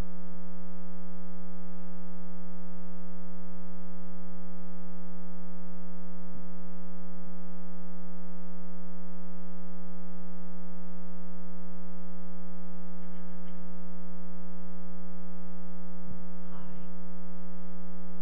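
Steady electrical mains hum in the sound feed: a constant buzz with many evenly spaced overtones, unchanging in pitch and level.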